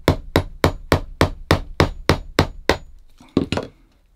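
Small shoemaker's hammer tapping a lemonwood peg into a leather shoe sole: about ten quick, even strikes, some three a second, that stop near the end of the third second once the peg is driven down. A few softer knocks and rubs follow as the hammer is put down.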